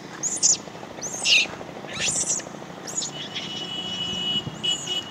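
Birds chirping: short, shrill calls that sweep down in pitch, about one a second, with a faint steady high whistle in the second half.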